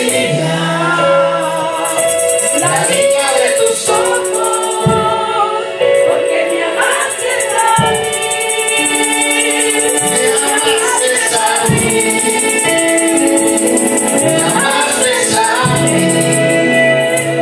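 Gospel worship music: voices singing together over instrumental accompaniment, with a rattling hand percussion keeping time.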